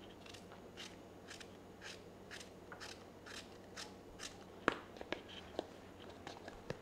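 Small kitchen knife cutting chunks off a raw apple held in the hand, about nine crisp cuts at roughly two a second. Then a sharp knock, the loudest sound, and a few lighter clicks.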